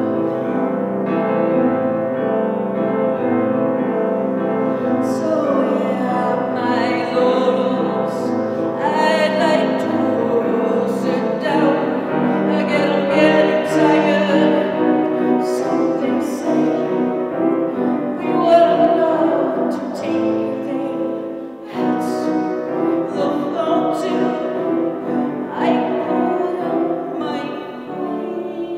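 A woman singing slowly to her own grand piano accompaniment. Sustained piano chords run throughout, and the voice is most prominent from about five seconds in.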